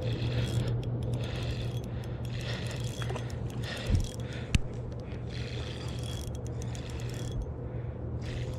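Small spinning reel being cranked to bring in a hooked trout: a steady mechanical whir of the reel's gears with fine ratcheting ticks. Two short knocks come about halfway through.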